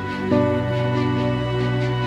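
Background music of held chords, moving to a new chord about a third of a second in.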